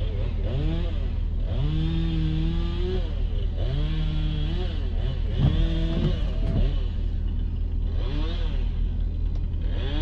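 Chainsaw revving up and down about six times, held at full speed for a second or so at a stretch as it cuts up a fallen tree, over a steady low engine hum.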